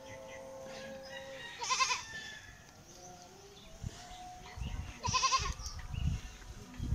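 Goat bleating twice, a short wavering bleat about two seconds in and another about five seconds in. Low thumps fill the second half.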